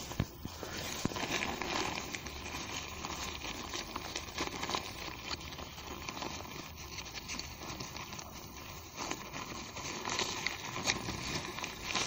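Rip-stop polyester tent flysheet rustling and crinkling as it is handled and fastened to the tent's poles, with many small scattered clicks.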